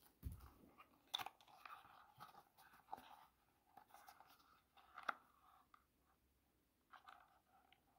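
Quiet handling of packaging: a soft thud as a small bag of screws is set down, then cardboard rustling and scraping with a few sharp clicks as a PC case fan in its cardboard insert is handled.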